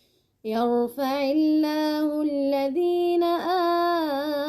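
A woman chanting the Quran in melodic tajweed style. After a brief pause, a little under half a second in, she holds long sustained notes that bend and step in pitch.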